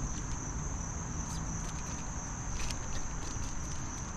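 Insects trilling steadily in one continuous high-pitched drone, with a few faint ticks over it.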